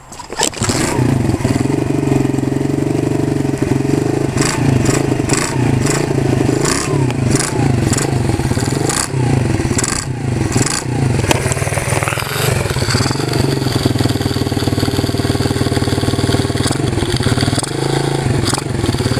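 A small single-cylinder four-stroke 110cc pit bike engine fires about half a second in on a cold start and keeps running, its speed rising and falling.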